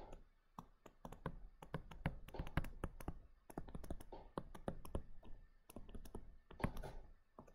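Faint, irregular tapping and clicking of a stylus on a tablet screen while writing out an equation by hand, many small taps a second.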